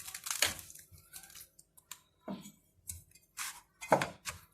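Salted lemon quarters being packed into a jar: a handful of short wet squishes and light knocks, with quiet gaps between them, the loudest about four seconds in.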